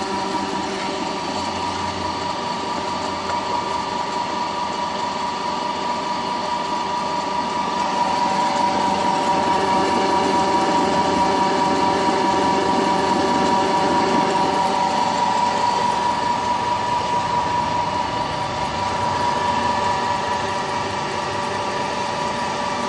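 Small flat-die feed pellet mill running under its electric motor, pressing feed into pellets: a steady mechanical hum with a constant whine. It grows louder for several seconds in the middle, then eases back.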